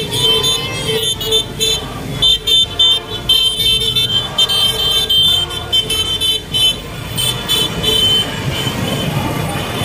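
Horns of many passing motorcycles beeping in short, repeated bursts over the running engines of the procession. The honking thins out about eight seconds in, leaving the engine noise.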